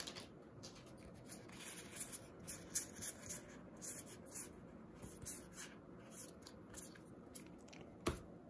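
Trading cards being flipped through one at a time in the hands: quiet, soft slides and flicks of card against card, about two a second, with a sharper tap near the end.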